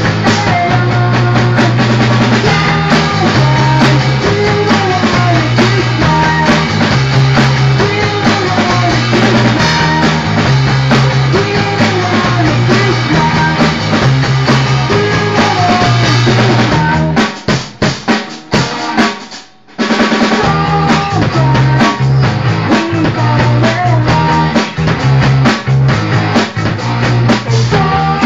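Live punk rock band playing full out: electric guitar, electric bass and drum kit, with a repeating bass-note pattern and steady drum hits. About two-thirds of the way through, the band drops into a short break of separate stabs with a brief gap, then comes back in together.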